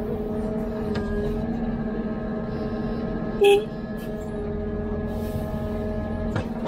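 Hidromek 102B backhoe's diesel engine running at a steady speed with an even hum. A single brief, loud sharp sound cuts in about three and a half seconds in.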